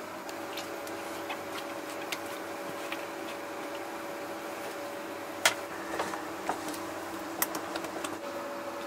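Silicone spatula scraping a thick red sauce out of a plastic bowl and stirring it in a frying pan: scattered light clicks and taps, the sharpest about halfway through, over a steady hum.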